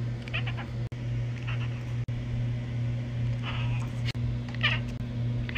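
A ginger cat making four short, quiet calls, about one every second or so, over a steady low hum.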